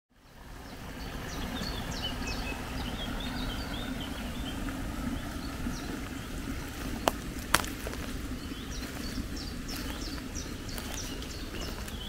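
Small forest stream running steadily, with a songbird singing short, repeated high notes over it. Two sharp clicks a little past halfway.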